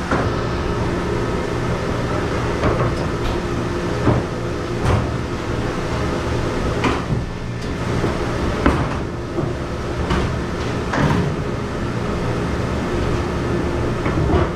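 Steady hum of commercial kitchen machinery from the dish machine and exhaust hood, broken by scattered sharp knocks and clatters of dishware and a wooden board handled at a stainless steel sink.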